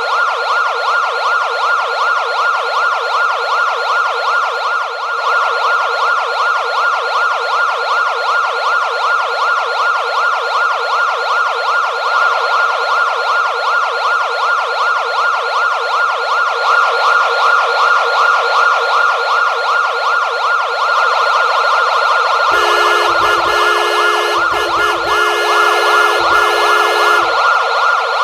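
Electronic police car siren in a fast, repeating yelp, sweeping up and down several times a second. Near the end a second, steady tone cuts in and out over it in a few short blasts.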